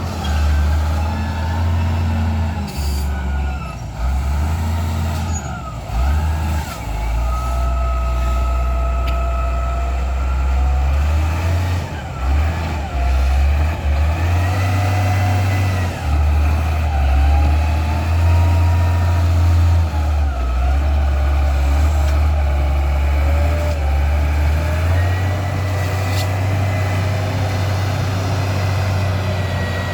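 Heavy diesel engines of trucks or road machinery running and labouring. The engine pitch rises and falls repeatedly, as with changing revs under load.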